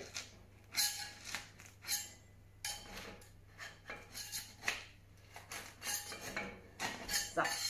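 Metal serving lifter scraping and prying between a crusty loaf and the wall of a stoneware baker, in irregular short scrapes, to free bread stuck fast because it rose so much.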